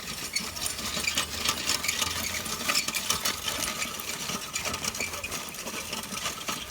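Ox-drawn plough rattling and clattering as it is dragged through the soil: a dense, fast run of small clicks and knocks.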